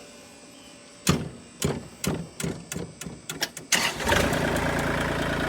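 Kubota tractor's diesel engine cranking and firing unevenly, the strokes coming faster until it catches about four seconds in and settles into a steady idle, now that the fuel shut-off valve that had vibrated closed is open again.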